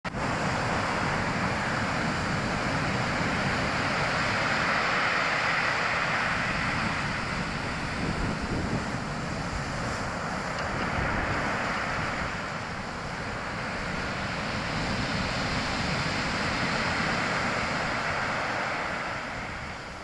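Rough sea surf breaking and washing up a pebble beach. It makes a continuous rush that swells and eases every five seconds or so.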